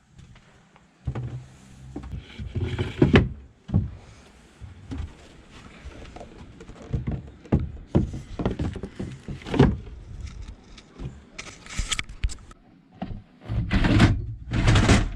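Irregular knocks, thuds and scraping of hand demolition work on wooden boat fittings in a small cabin, with a cluster of heavier thuds near the end.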